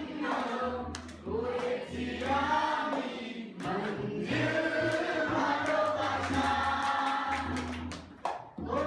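A man singing a song into a microphone through a hall PA, accompanied by tabla. The sung phrases rise and fall, with short breaks between them.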